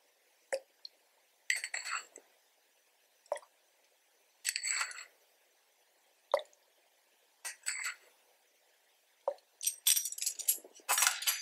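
A metal measuring spoon clinking against a small glass bowl as teaspoons of vinegar are scooped out and tipped into warm milk: short, ringing clinks every second or so, with a quicker flurry of clinks near the end.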